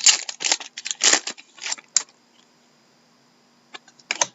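Trading cards being handled and flicked through in the hand: a run of quick papery rustles and snaps over the first two seconds, then a pause, then a couple more near the end.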